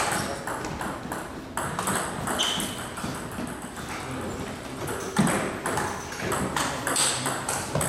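Table tennis balls clicking sharply off rackets and table tops in quick, irregular succession, with faint voices under them.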